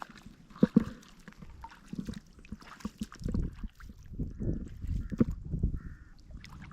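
Water sloshing and splashing in uneven surges, as someone moves or works by hand in shallow water, with two sharp knocks close together about half a second in.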